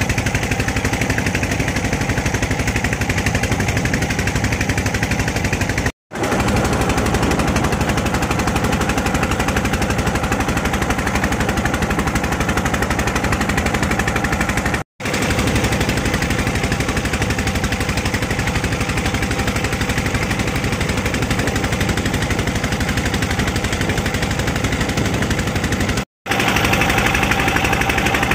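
A small fishing boat's inboard engine running steadily under way, a loud, rapid, hard chugging beat heard from on board. The sound drops out briefly three times.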